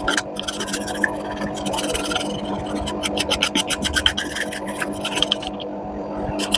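Quick, scratchy scrubbing strokes on a washing machine's electronic control board as it is cleaned of dirt and cockroach debris, stopping about five and a half seconds in and starting again near the end, over a steady hum.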